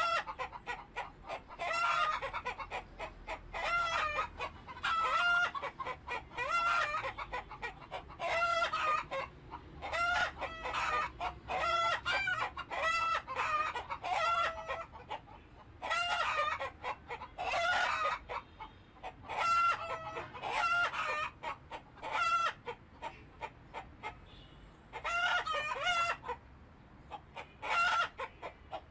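Chickens clucking and calling in repeated bursts, a new burst every second or two.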